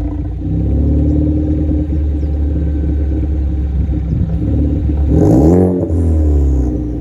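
Ford Focus ST's turbocharged four-cylinder idling steadily through a Cobb cat-back exhaust and catless downpipe. About five seconds in comes one quick throttle blip: the revs rise and fall within a second, then it settles back to idle.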